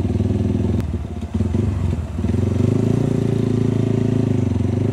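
150 cc café-racer motorcycle engine running under the rider. The engine note drops briefly about a second in, then pulls steady and louder again from about two seconds.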